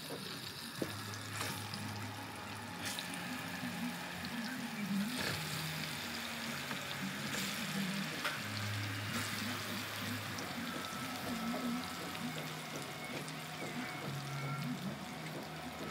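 Banana halves frying in hot cooking oil in a pan: a steady sizzle, with sharper spatters and crackles now and then as pieces are added.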